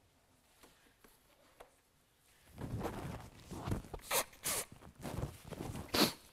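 Clothing rustling and shuffling as people get up from kneeling on a carpet, starting a couple of seconds in, with a few sharper swishes of fabric.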